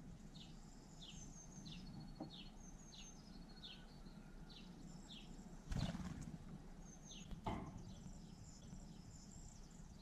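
Song thrush taking off from a stone water trough, a brief flutter of wings about six seconds in and another a second and a half later. Small birds sing in the background: short down-slurred notes about twice a second and a high jingling twitter.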